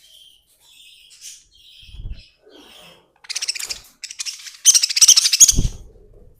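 Pet budgerigars chirping, then breaking into loud, rapid, raspy chatter over the last few seconds, with a couple of low thumps.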